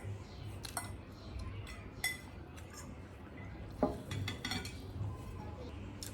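Utensils clinking and scraping against a plate or bowl at the end of a meal: a handful of sharp, scattered clinks, some with a brief metallic ring.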